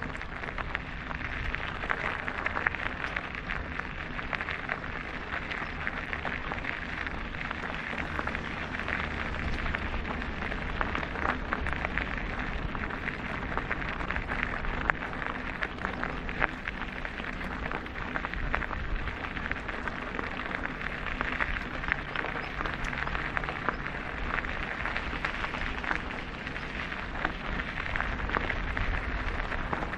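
Mountain bike tyres rolling over a stony gravel trail: a steady crackle of many small clicks from stones under the tyres, with a low rumble underneath.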